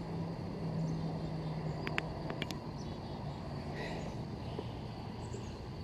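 Outdoor ambience with a steady high insect trill and a low steady hum that fades after about three seconds. A few sharp clicks come about two seconds in.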